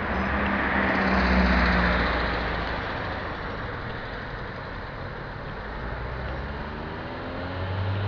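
Road traffic: cars driving by, with one passing close and loudest about a second and a half in. Low engine tones run under a steady roadway noise, and an engine note rises in pitch near the end.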